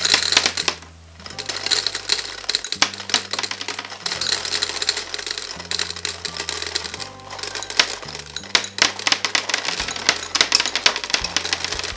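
Gumballs pouring from a jar into a glass gumball-machine globe: a dense, rapid clatter of hard candy balls striking the glass and each other, with a brief lull about a second in.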